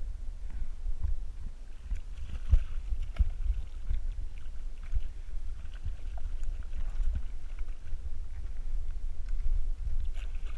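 Low wind and handling rumble on a chest-mounted GoPro with scattered knocks against the plastic kayak, and small splashes from a hooked mackerel thrashing at the surface as it is reeled in.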